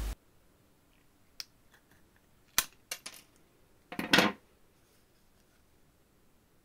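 An old pair of scissors snipping off a corner of thin brass sheet, giving a few sharp clicks. About four seconds in comes a louder short clatter of metal on the table.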